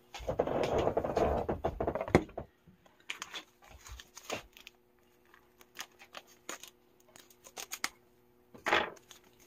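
Rustling handling noise for the first couple of seconds, then scattered small clicks and scrapes as a small knife works at a clear plastic grinder.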